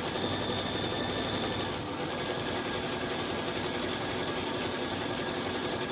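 Bernina sewing machine stitching steadily, sewing binding around a round placemat through its binder attachment.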